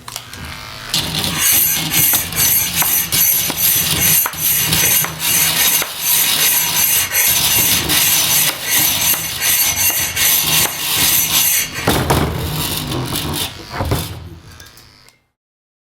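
Hand-made sound effect: a dense, rough scraping and rubbing with rapid strokes for about eleven seconds, a short louder burst near the end, then it dies away and stops.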